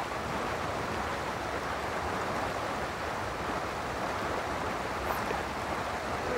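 River water rushing steadily over riffles, an even noise that does not change.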